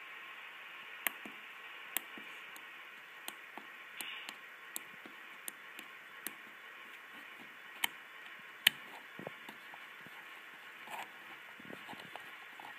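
Push buttons on a FRED model-railroad hand controller clicking as they are pressed one after another for its self-test: about a dozen short, sharp clicks at uneven intervals over a steady hiss, one louder click near the end.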